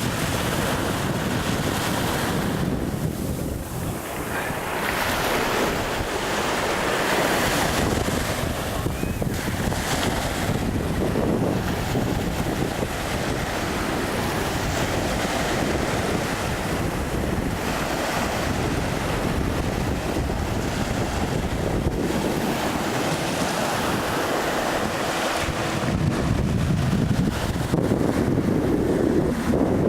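Sea surf: waves washing in and breaking on the shore, swelling and ebbing every few seconds, with wind buffeting the microphone.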